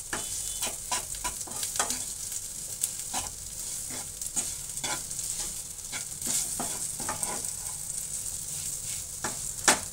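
Spatula scraping and knocking in a nonstick frying pan as mashed boiled potatoes and spices are stirred and mixed in hot oil, with a steady sizzle underneath. The strokes come irregularly, several a second, and a sharper knock against the pan comes near the end.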